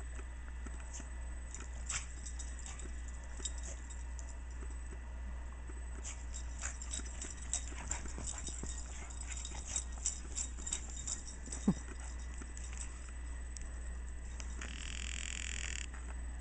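Irregular crunching steps in deep snow, densest in the middle, over a steady low camcorder hum. About two-thirds of the way through comes one short, sharp squeak, and near the end a brief hiss.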